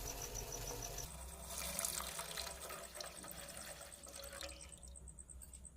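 Water running or being poured into a vessel, a steady splashing that tails off near the end.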